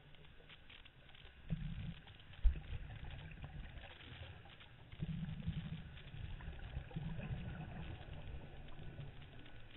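Muffled underwater sound picked up through a camera housing: low rumbling bursts of a scuba diver's exhaled regulator bubbles every couple of seconds, with one sharp thump about two and a half seconds in.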